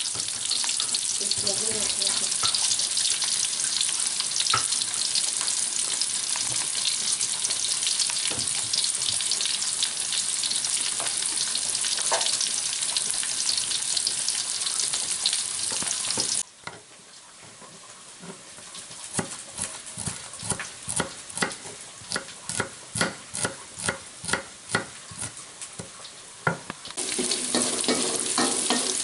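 Sliced shallots and green chilies sizzling in hot oil in a metal wok, stirred with a wooden spatula. About halfway through the sizzle cuts out abruptly, leaving the spatula scraping the wok in a steady rhythm about twice a second. Near the end the full sizzle comes back.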